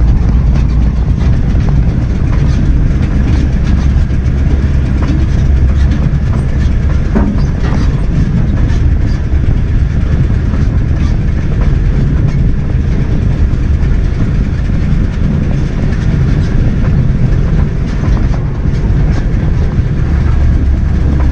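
Truck driving over rough harvested corn-field ground: a steady low engine rumble with constant rattling and knocking from the body as it bounces along.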